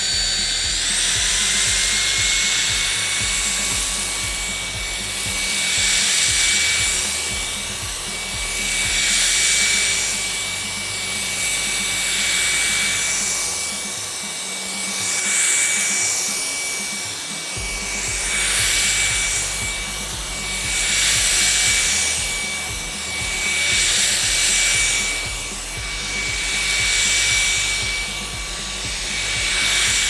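LG CordZero A9 cordless stick vacuum running with its combination brush head on a dense shag rug. It gives a steady motor whine that steps up in pitch about a second in as the suction level is raised. A swishing hiss swells and fades about every three seconds as the head is pushed and pulled through the pile.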